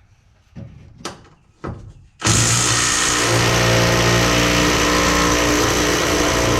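A power wrench runs hard for about five seconds on a rear leaf-spring shackle bolt, a loud steady buzzing rattle that starts suddenly a couple of seconds in. A couple of short knocks come before it.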